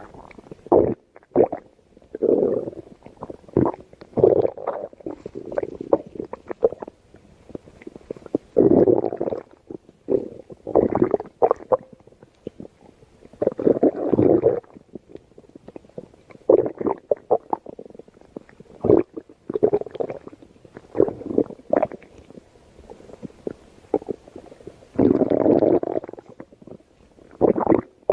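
A person's stomach growling and gurgling in irregular bursts: short pops and clicks between a few longer rumbles lasting about a second.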